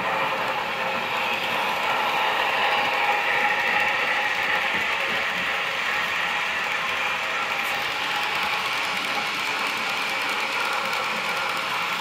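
Broadway Limited model steam locomotives, a Union Pacific Big Boy and a Challenger, running on a model railroad's track loops. Their gearing and wheels on the rails make a steady mechanical clatter.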